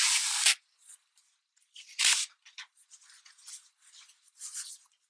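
Yarn rustling and scraping as a crochet hook pulls it through the stitches to join two stuffed crocheted pieces, in short scratchy bursts. The loudest bursts come right at the start and again about two seconds in.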